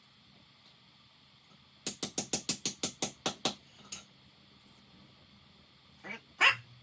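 A quick run of about a dozen sharp hammer taps on a laminated steel padlock, roughly seven a second, followed by a single tap and then two fainter knocks near the end.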